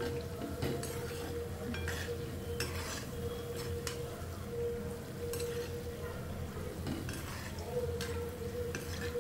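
Jaggery-and-wheat-flour fritters (gulgule) frying in hot oil with a steady sizzle, and a metal spoon clinking against the pan now and then as they are stirred and turned. A steady low hum runs underneath.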